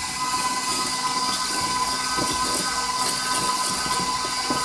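Stand mixer running steadily while it creams the butter, a continuous whir with a faint steady whine, over the soft scratching of a wire whisk stirring through dry flour in a mixing bowl.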